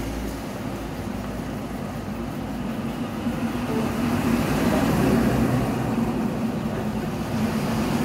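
Steady background noise of road traffic, a low rumble with hiss, rising a little around the middle.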